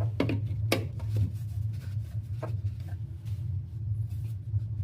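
A few light knocks and clicks of hand tools and ABS plastic pipe fittings being handled, most in the first three seconds, over a steady low hum.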